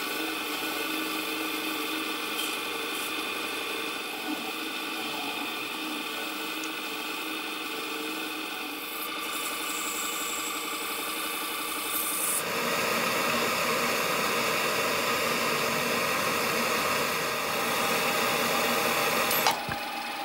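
Microlux 7x16 mini lathe running steadily, its motor and drive giving a whine of several steady tones while a brass disc is turned on an aluminium arbor. About twelve seconds in, a louder, noisier layer of work on the spinning part joins it and stops with a sharp click shortly before the end.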